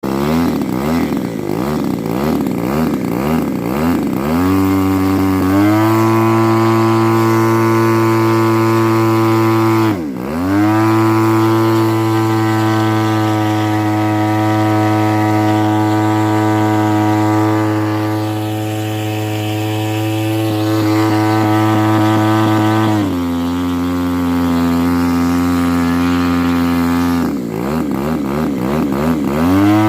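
Pitts S2C engine misfiring from a faulty spark plug cap. It runs unevenly for the first few seconds, then settles into a steady higher-revving note with a brief dip about ten seconds in. It drops to a lower note a few seconds before the end and turns uneven again near the end.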